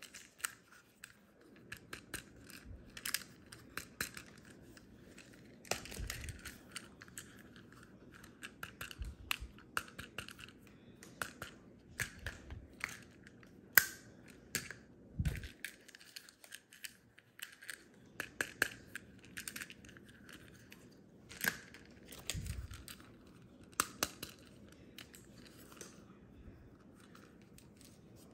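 Small hard plastic toy figures being handled and fitted together: irregular light clicks and taps as limb pieces are pressed into the bodies and the figures are set down on a stone countertop, with a few dull thumps.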